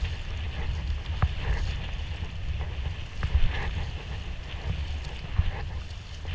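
Water splashing and lapping around a sea kayak under way, with a few short splashes or knocks from the paddle strokes. Wind rumbles steadily on the action camera's microphone.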